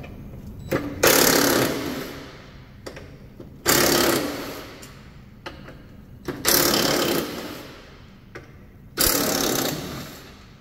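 Cordless impact wrench with a 13 mm socket hammering loose the bolts that hold a mower-deck spindle tower. Four bursts of about a second each, each starting sharply and tailing off, with short clicks between them.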